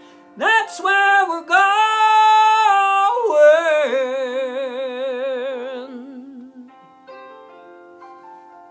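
A man singing the closing vocal of the song in a high voice: a slide up into long held notes with wide vibrato, stepping between pitches, over backing music. The voice fades out about two thirds of the way through, leaving sustained backing chords that die away.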